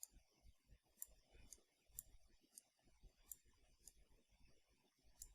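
Faint, irregular computer mouse clicks, about one every half second to second, while points are selected and dragged in 3D modelling software.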